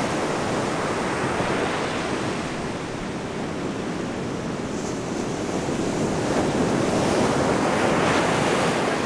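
Ocean surf breaking and washing up the beach, with wind buffeting the microphone; the wash swells a little louder in the second half.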